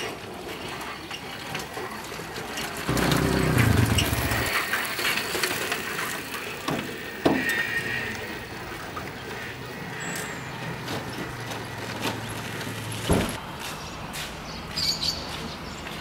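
Outdoor street noise with traffic, a louder low rumble about three seconds in, and scattered knocks and clatter.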